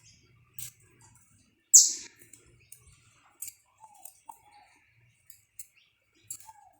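Saffron finch giving scattered sharp chirps and clicks, the loudest a high note sweeping downward about two seconds in, with a few short lower notes in between.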